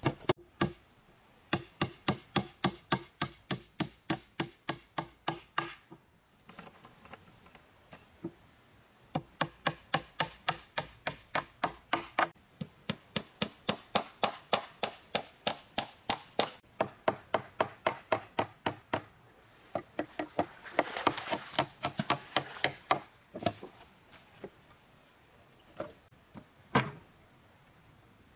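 Rapid, even blows of a hand tool, about three to four a second, in long runs broken by short pauses. The blows turn denser and noisier about two-thirds of the way through, then give way to a few single knocks near the end.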